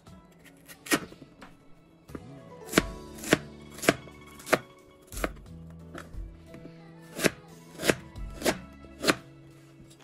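Kitchen knife slicing through peeled bamboo shoot, each stroke ending in a sharp knock on the plastic cutting board. There are about ten strokes, mostly in two runs of roughly one every 0.6 s.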